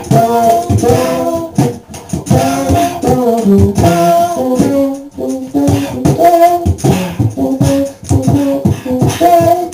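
Live beatboxing into a handheld microphone: quick mouth-made drum hits under a wordless, pitched vocal melody.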